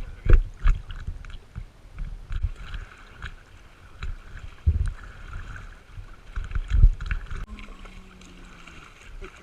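Small boat being paddled: paddle strokes making irregular dripping and splashing in the water. Gusts of wind thump on the microphone throughout.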